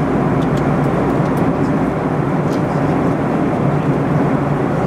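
Steady cabin noise inside a Boeing 737-800 airliner during descent: an even rushing drone from its CFM56-7B engines and the airflow past the fuselage, heard from a window seat beside the wing.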